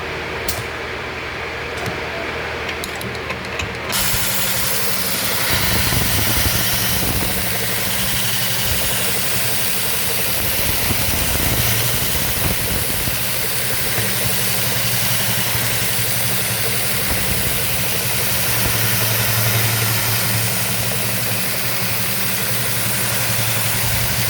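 Juki AMS-210EN computer-controlled pattern sewing machine with a heavy-duty rotary hook, sewing a programmed stitch pattern at speed: a steady, loud mechanical running hum. It runs quieter with a few clicks for about the first four seconds, then sews at full speed and stops at the end.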